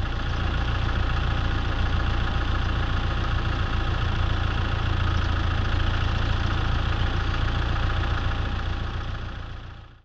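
Safari vehicle's engine running steadily with a deep rumble. It swells up in the first second and fades away in the last second.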